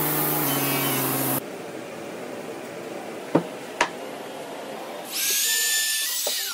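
Sliding-table panel saw running until a sudden cut-off a little over a second in. Two sharp knocks follow. Then a handheld router starts with a loud high whine and winds down in pitch near the end as it is switched off.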